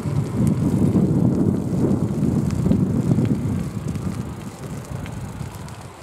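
Wind buffeting the camera's microphone: a loud, gusting low rumble that dies down over the last couple of seconds.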